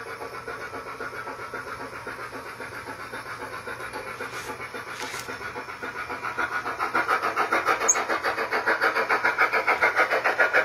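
Steam exhaust chuffs from a Blunami BLU-4408 steam sound decoder in an Aristocraft C-16 G scale locomotive, played through its speaker: a quick, even beat of about five chuffs a second that grows louder in the second half.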